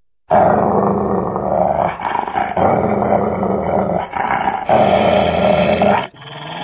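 A huge animated horned, shaggy beast growling loudly, a cartoon sound effect. It starts suddenly a moment in and runs in several long growls with short breaks between them, stopping near the end.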